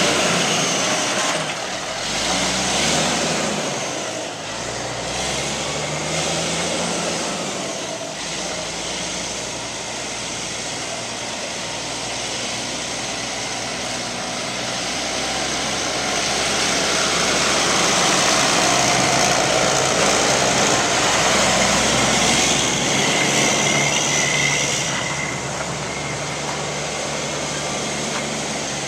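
Heavy diesel truck engine, the Kenworth T800's Cat C-10, running with its speed rising and falling a few times in the first several seconds, then running louder for a while from about halfway through.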